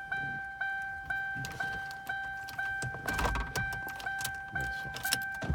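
Lincoln Town Car's warning chime ringing steadily, about two tones a second, each striking and fading: the car's reminder that the key is in the ignition with the door open. Plastic trim clicks and rattles about three seconds in and again near the end.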